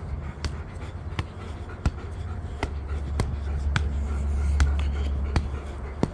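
A football bouncing and being knocked about in play: a sharp tap roughly every two-thirds of a second, over a steady low rumble.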